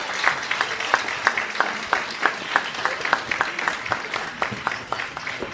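Crowd applauding, with sharp individual claps standing out, dying down near the end.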